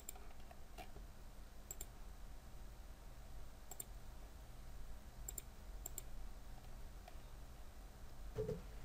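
Computer mouse clicking: a handful of faint, sharp clicks spaced a second or more apart, some in quick pairs, over low room hiss.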